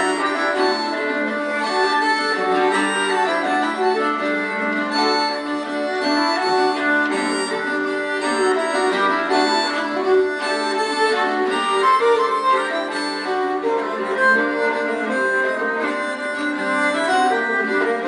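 A live acoustic folk ensemble plays a continuous instrumental tune. The parts are a bowed keyed fiddle (nyckelharpa), a strummed mandolin-type string instrument and a small accordion-type squeezebox, all playing sustained melody over chords.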